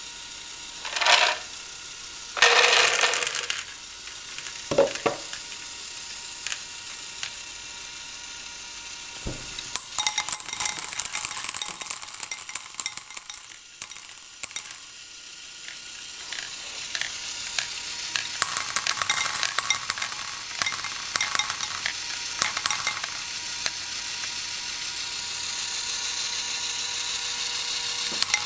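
LEGO Technic great ball contraption module running: its plastic belt and lift mechanism clicking as it carries small plastic balls, which rattle and clatter against the plastic parts and each other. A few separate knocks and scrapes come first, then two long spells of dense, fast clattering.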